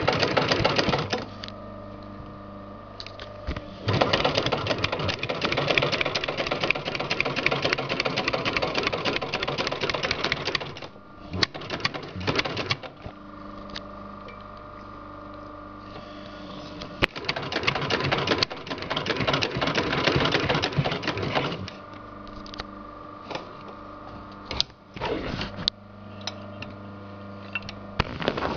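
Sailmaster 266-1 heavy-duty walking-foot zigzag sewing machine stitching through thick layers of sailcloth and webbing. It sews in several runs, the longest about seven seconds, with short bursts of a few stitches between. A steady motor hum carries on through the pauses.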